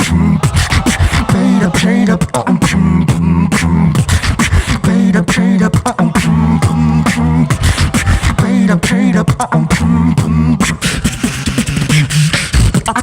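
Two-person beatbox team performing through a PA: a fast rhythm of vocal kick, snare and hi-hat clicks over a sustained throaty bass line that changes pitch in repeating phrases.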